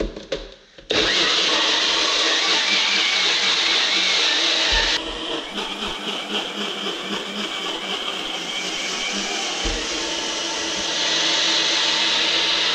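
Personal blender blending pancake batter of flour, plant milk and banana. The motor starts abruptly about a second in after a few clicks of the jar on the base, then runs steadily. It drops somewhat in level about five seconds in and rises again near the end.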